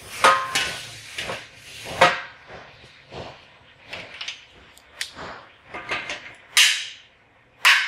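Steel clamps and frame tubing being handled and set down on a steel modular welding table: a series of sharp metallic clanks and clicks, a few of them ringing briefly.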